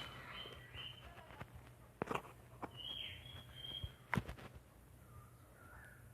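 Quiet background with faint, short high chirps and a few sharp clicks; the loudest clicks come about two and about four seconds in.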